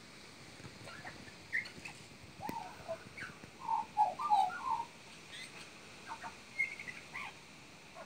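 Australian magpie singing a string of short chirps and warbled, pitch-bending notes as part of its mimicry of other animals; the loudest, densest run of warbled notes comes about halfway through.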